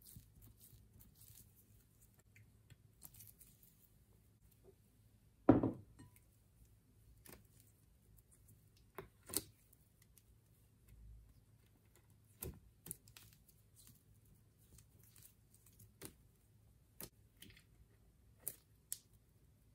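Clear rubber stress ball being squeezed and pulled open by hand over a glass bowl: scattered soft sticky clicks and crackles of the stretchy skin, with one much louder thump about five seconds in.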